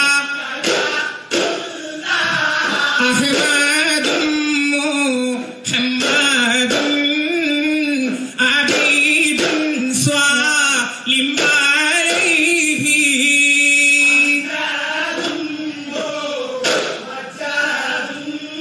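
A group of men singing a devotional Mappila song in unison, with duff frame drums struck in rhythm under the voices: duffmuttu.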